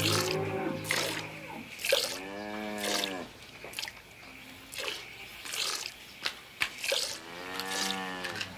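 Milk squirting into a metal pail as a Holstein cow is milked by hand, a hissy squirt about once a second. Twice the cow gives a call that rises and falls, each about a second long.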